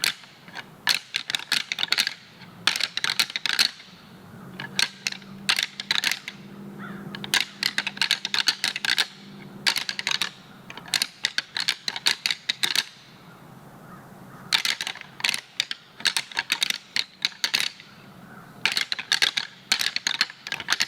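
Rattling antlers clashed and ground together in quick runs of clacking, about seven bouts with short pauses between, imitating two whitetail bucks fighting to call in a buck.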